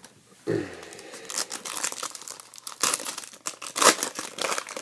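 Crinkling and rustling of trading-card packaging and plastic-wrapped cards being handled, with many sharp, irregular crackles.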